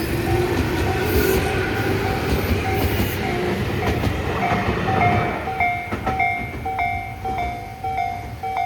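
Tobu Urban Park Line electric train running through the station with a rumble and rail clatter that fades after about five seconds. A repeating bell, typical of a railway crossing signal, dings throughout and rings clear once the train has gone.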